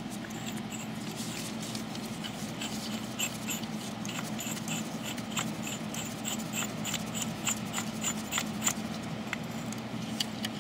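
Ratcheting wrench clicking as it turns a brake caliper rewind tool, screwing the rear caliper piston back into its bore. The clicks come in quick, regular runs through the middle, over a steady low hum.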